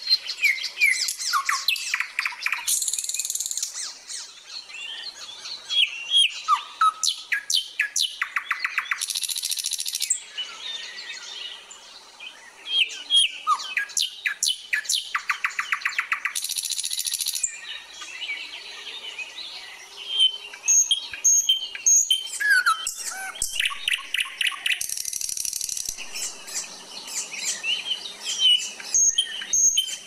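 Mixed birdsong from several birds calling over one another: short chirps, rising and falling whistled notes, and fast rattling trills that repeat every few seconds.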